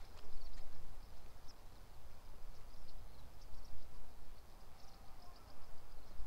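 Outdoor field ambience: wind on the microphone as a low, unsteady rumble, with short high chirps of insects scattered through it.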